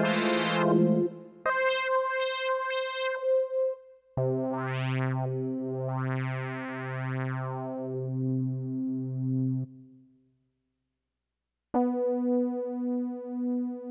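Roland Sound Canvas SC-55 synth tones played as held notes and chords, pulsing gently about twice a second, their brightness sweeping up and down as the expression pedal moves the TVF filter cutoff. The sound stops for about two seconds near the end, then a new held note starts.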